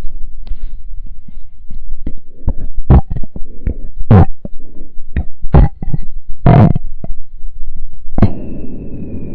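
A string of short, loud, gassy bodily blurts that could pass for burps or farts, about seven of them over a low rumble. Near the end a longer blurt is followed by a thin, high, held tone lasting over a second.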